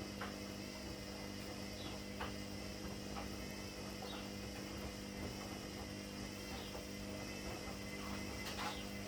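Steady low electrical hum with a few faint, light clicks scattered through it.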